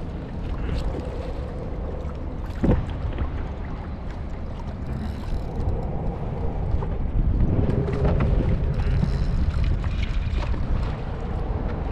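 Wind rumbling on the microphone over water and hull noises on a fishing kayak, with scattered clicks and one sharp knock a little under three seconds in.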